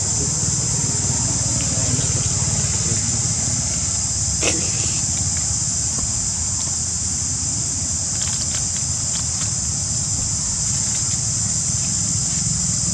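Steady, high-pitched chorus of insects, with a low rumble beneath it. A single sharp click about four and a half seconds in, and a few faint ticks later.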